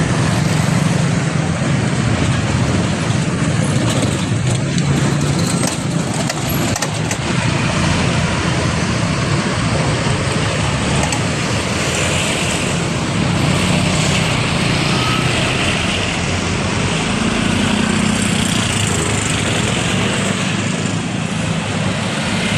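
Street traffic with a truck's diesel engine running close by: a steady low engine drone under road and tyre noise.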